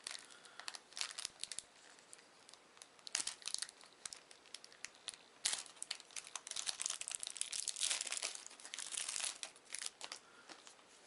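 Trading card booster pack wrapper being torn open and crinkled by hand, in irregular crackling rustles that thicken in the second half.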